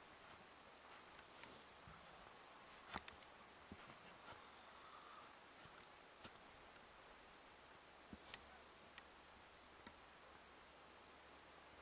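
Near silence with faint insects chirping in short, repeated high pulses, and a few scattered soft clicks.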